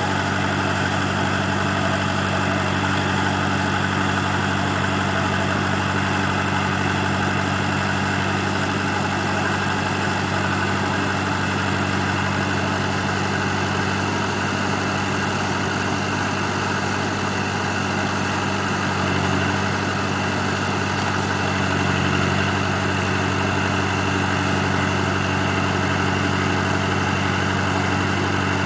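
Ebro 460 tractor's Perkins four-cylinder diesel engine running steadily at a constant speed while it powers the hydraulic crane.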